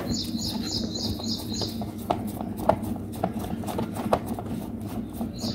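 Phillips screwdriver turning a screw out of a rusty air-cooler swing motor mount: scattered light clicks and scrapes of metal on metal. A small bird chirps rapidly in the background, about four chirps a second, for the first two seconds.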